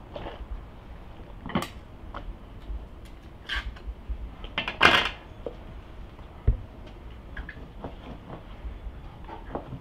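Metal kitchen utensils clattering: light clicks and taps as a knife is handled, then a louder clatter about five seconds in, consistent with a knife being laid into an aluminium colander.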